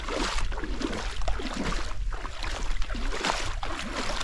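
Water sloshing and splashing as a person wades through shallow water towing a kayak, a string of small, irregular splashes over a steady low rumble.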